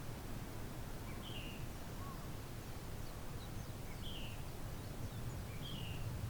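A bird calls three times, each a short falling note, over a steady low rumble.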